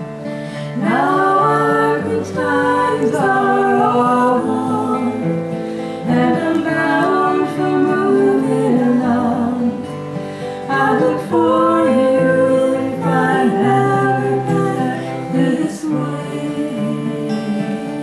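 Two acoustic guitars strumming a folk song while a woman sings; the singing stops near the end and the guitars carry on.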